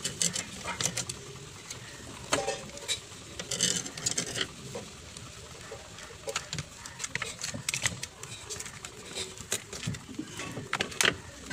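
Irregular clicks and knocks of a plastic emergency-light housing being handled and its top cover pressed down onto the base, with a sharper knock near the end.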